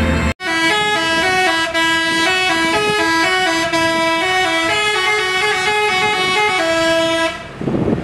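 Telolet multi-tone bus air horn playing a quick tune: two notes sounding together, stepping to new pitches every fraction of a second. It starts abruptly about a third of a second in and stops shortly before the end.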